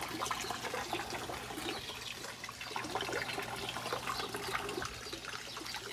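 Water trickling steadily, a continuous small splashing and dribbling.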